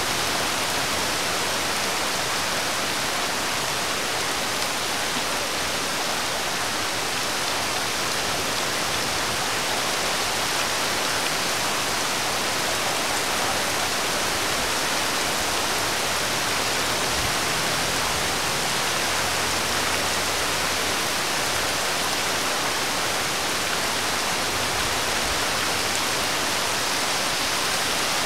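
Steady rain falling on a wet road, an even hiss.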